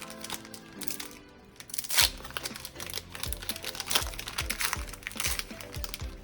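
Foil trading-card booster pack wrapper crinkling and being torn open, the loudest rip about two seconds in, followed by more crinkling. Background music with a steady beat plays underneath.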